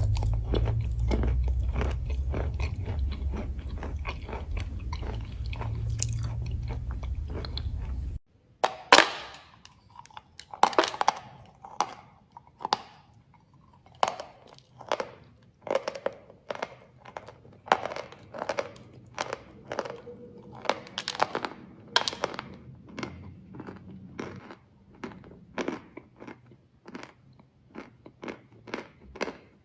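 Chalk crunching close to the microphone. For the first eight seconds there is dense crackling over a low rumble; then, after an abrupt cut, separate crisp crunches come about one or two a second.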